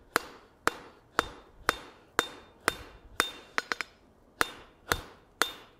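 Hand hammer striking red-hot steel on an anvil, about two blows a second, each with a short metallic ring, and a quick run of three light taps just past the middle. The blows are knocking the corners off the square rein of a tong blank, working it toward an octagon.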